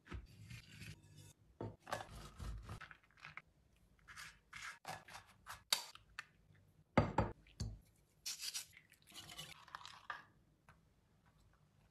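Close-up food-prep handling sounds: a nonstick baking pan handled on flatbread, an egg cracked into a bowl, and a spoon stirring cream sauce in a glass bowl. They come as a string of taps, knocks and short scrapes, the sharpest knock about seven seconds in.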